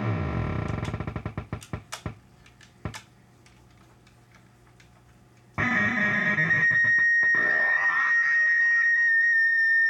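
Septavox synthesizer: a pitch sweep dives down to a low rumble and dies away with scattered clicks, then only a faint low hum remains. About five and a half seconds in, a loud, distorted, high held tone cuts in abruptly and holds steady.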